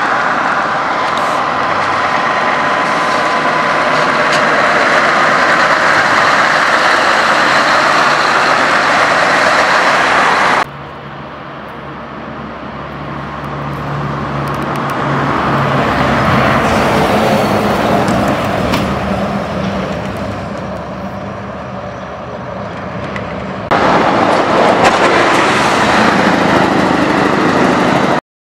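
Scania V8 diesel trucks with loud exhaust pipes driving past. The sound cuts twice: a loud steady run, then one that swells as a truck approaches and fades as it goes by, then loud again until it stops suddenly near the end.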